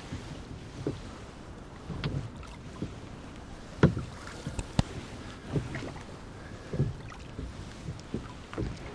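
Rowboat oars dipping and working in the oarlocks: a low knock and splash roughly every second, with a couple of sharper clicks near the middle, over faint wind noise.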